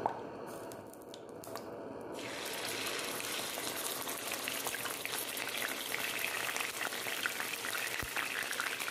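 Hot cooking oil sizzling in a nonstick frying pan. The sizzle jumps up suddenly about two seconds in and then crackles steadily and loudly.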